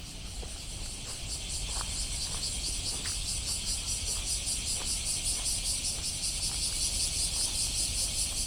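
Chorus of cicadas buzzing: a dense high-pitched drone that pulses about three times a second and grows louder over the first second or two. A low rumble runs underneath, with a few faint short chirps.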